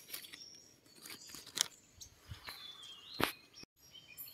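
Forest ambience with small birds chirping in short high calls, broken by two sharp clicks or snaps, about one and a half and three seconds in.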